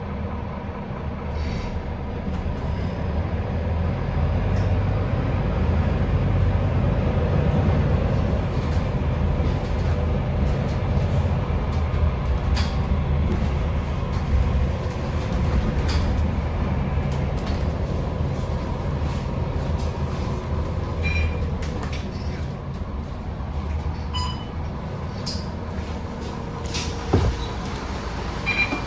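Bus cabin ride noise: a low engine and drivetrain rumble with road noise that builds as the bus picks up speed, then eases off as it slows to a stop, with small rattles and clicks from the interior. A sharp knock near the end.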